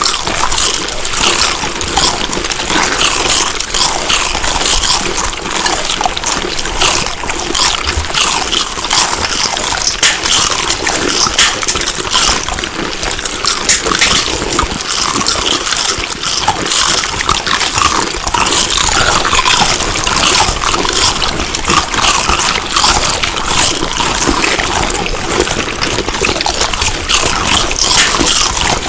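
A person chewing food close to the microphone: loud, dense, wet smacking and squelching clicks without let-up.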